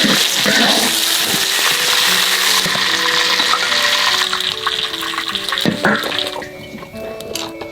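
Background music playing over a steady hiss that thins out and stops about six seconds in, leaving only the music.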